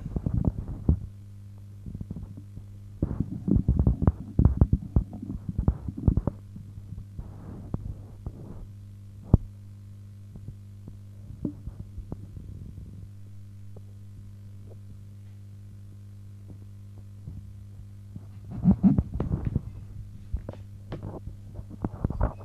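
Knocks, thumps and clatter of a homemade vidicon camera being handled and moved about, in bunches through the first nine seconds and again near the end, with one sharp click about nine seconds in. A steady low hum runs underneath.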